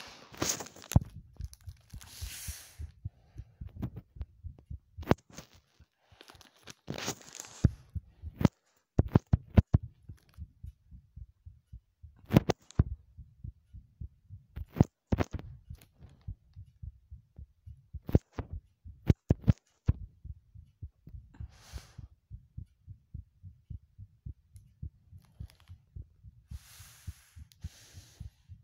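A heartbeat recorded close up: a steady run of low, soft thumps. Louder sharp clicks break in now and then, mostly in the first two-thirds, along with a few brief rustles.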